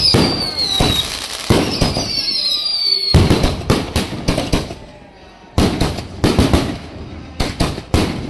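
Aerial fireworks going off: two whistles falling in pitch over the first three seconds, then quick runs of sharp bangs as the bursts go off overhead, in three clusters.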